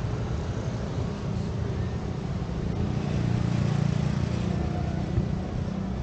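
Street traffic with a motor vehicle's engine running close by, growing louder about three seconds in as it passes, then easing off.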